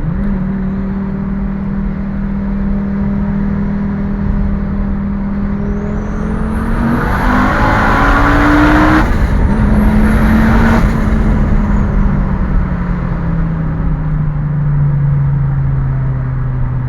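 Fiat Marea Turbo's turbocharged five-cylinder engine pulling under load: its tone rises for a few seconds with a loud rushing hiss, dips briefly about nine seconds in like a gear change, then eases off with the pitch falling over the last few seconds.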